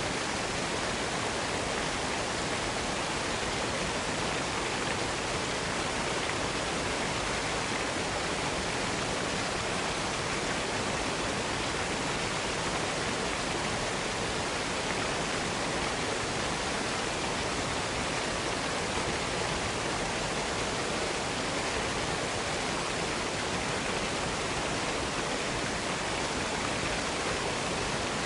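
Waterfall: water falling and flowing in a steady, even hiss that doesn't change.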